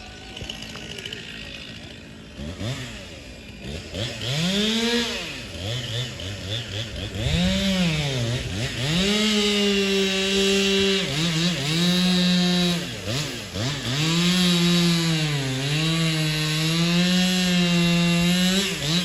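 Two-stroke chainsaw engine revving, its pitch rising and falling a few times, then held at high revs with brief dips in speed before recovering.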